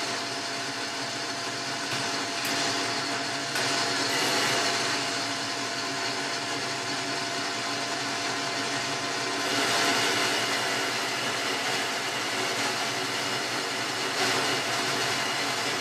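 Boxford lathe running with a turning tool cutting a mild steel bar: a steady machine whir with a faint steady whine through it, growing louder for a few seconds about four and ten seconds in.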